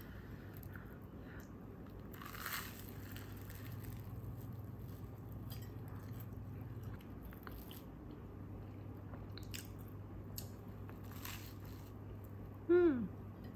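A flaky, croissant-dough loaf is pulled apart by hand and eaten: crisp crackles of the layered crust and bites and crunches, over a low steady hum. Near the end comes a short squeak falling in pitch, the loudest sound.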